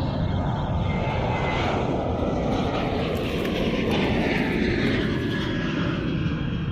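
A loud, steady rumbling roar that swells through the middle and eases near the end, with short splashes from a hooked fish thrashing at the kayak's side.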